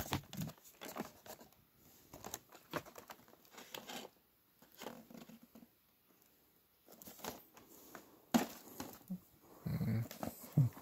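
Toy packaging being handled: plastic blister windows and cardboard boxes crinkling, rustling and tapping as they are picked up and moved, in irregular bursts with short pauses.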